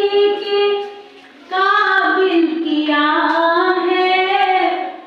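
A woman singing a slow song solo into a microphone, with no instruments. She holds long, gliding notes and pauses for breath about a second in and again near the end.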